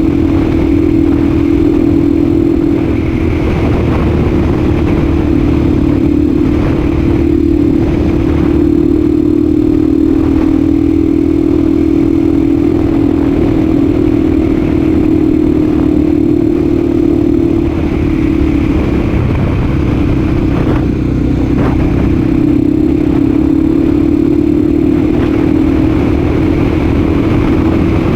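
Honda Tornado's 250 cc single-cylinder four-stroke engine running hard at a steady, high engine speed, with only slight rises and dips in pitch.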